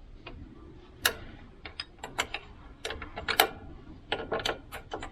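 Small metal spanner clicking and tapping against a bolt head as it is worked onto a regulator mounting bolt in a tight spot: irregular sharp metallic clicks, some in quick runs of two or three.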